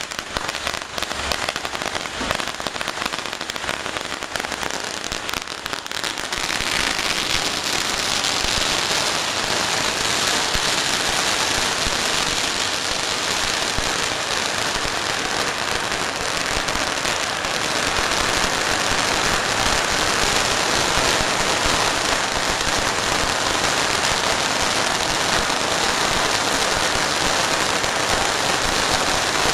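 A stack of firecracker belts (three 16,000-shot belts and one 8,000-shot belt) burning through, a continuous dense crackle of rapid small bangs that grows denser and louder about six seconds in.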